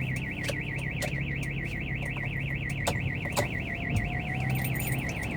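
Car alarm siren going off continuously, a fast steady warble wavering up and down several times a second. A few sharp clicks and a low steady hum sit underneath. It is the car's own alarm, which keeps going off and which the owner cannot stop.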